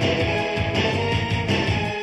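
Rock theme music led by strummed electric guitar over a steady bass and drum beat.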